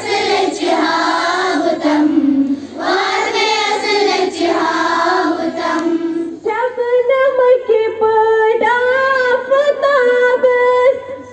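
A group of schoolchildren singing a prayer together. About six seconds in, the singing changes abruptly to a cleaner, steadier melodic line.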